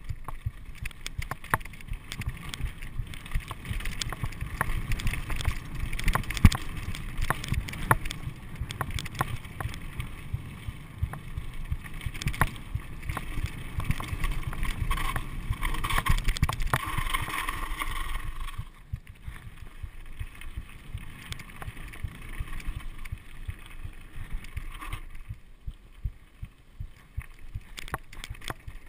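Mountain bike rolling over rough, rocky dirt singletrack: a continuous rumble of tyres on gravel, with the frame and components knocking and rattling over each bump. It becomes noticeably quieter about two thirds of the way through.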